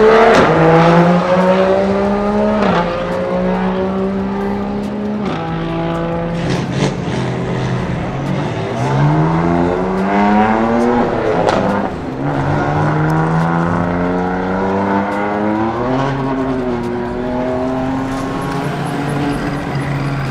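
Race car engines accelerating through the gears: the engine notes climb in pitch and drop back at each upshift, several times over, with more than one car's engine heard at once.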